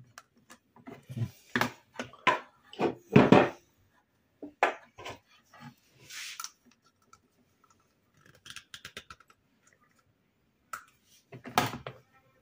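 Irregular knocks and plastic clicks from a power cord and plug adapter being handled and tried together on a metal compressor case, loudest about three seconds in. The adapter being tried is the wrong one for the plug.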